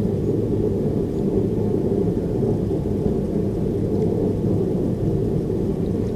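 Steady low roar of a forge burner running, with no pauses or strokes.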